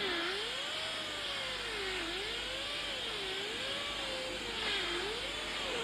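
Hand-held power tool working car bodywork, its whine rising and falling about once a second as it is pushed back and forth under changing load.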